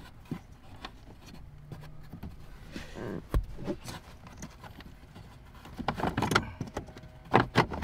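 Plastic clicks, knocks and rustling as a hand works the retaining clip on a Lexus LS460's cabin air filter cover behind the glovebox, with a sharper knock about three seconds in and a cluster of clicks near the end.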